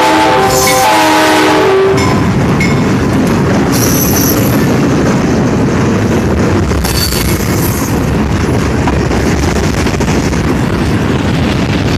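Diesel freight locomotive's horn finishing one blast just after the start, then sounding a second blast of about a second. After that, the steady rumble and clatter of freight cars (a tank car, then covered hoppers) rolling past close by, with brief high-pitched wheel squeals around four and seven seconds in.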